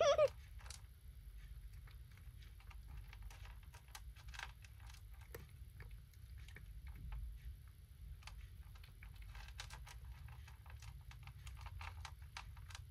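Kitten eating dry kibble from a plastic bowl: faint, irregular crunching and small clicks, over a low steady room hum.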